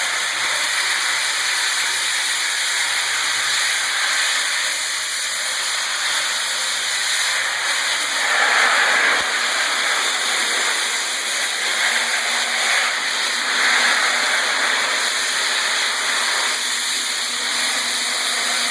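Electric floor sander running steadily and grinding old carpet adhesive off a concrete floor: a constant harsh hiss with a high motor whine, swelling louder twice as the pad bites.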